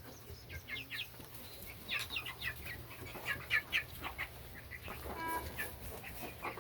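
Chickens clucking in a series of short clucks, with one longer call about five seconds in.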